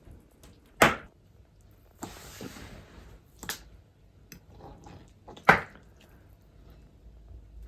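Two sharp knocks, about a second in and again about five and a half seconds in, with a lighter click between them and a brief rustling scrape about two seconds in.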